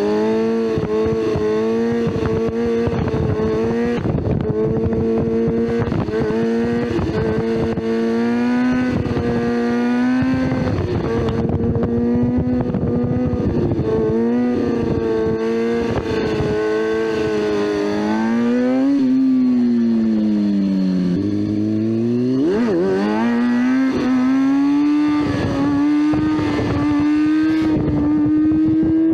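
Motorcycle engine running under load while being ridden, its revs climbing and falling with throttle and gear changes. About two-thirds of the way in the revs sweep down, then climb again.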